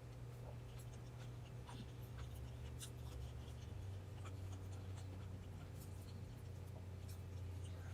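Faint eating sounds: soft clicks and small scratchy noises of chewing and handling food, over a low steady hum.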